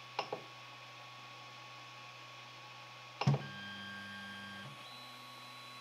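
Creality Ender 3 Pro 3D printer, just powered on, humming steadily. There is a light click just after the start, and a louder click a little past three seconds, after which the hum's pitch shifts for about a second and a half before settling again.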